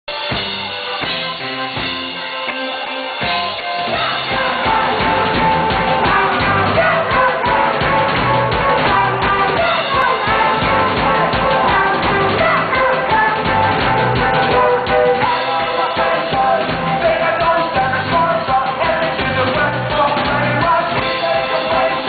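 Live rock band playing: electric guitar and drums with a male lead singer. A thinner, quieter opening gives way to the full band with a steady beat about three and a half seconds in.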